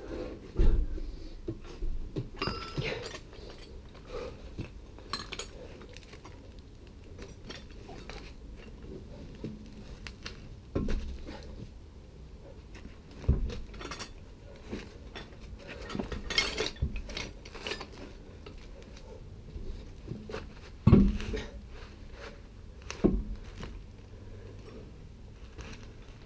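Intermittent metallic clinks and knocks from hand tools and steel parts as a van's front suspension ball joint is refitted and the road wheel put back on, with several louder knocks standing out among the lighter clatter.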